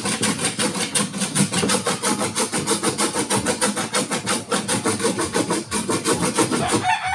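Rapid back-and-forth scraping or rubbing on wood by hand, about six strokes a second, stopping just before the end.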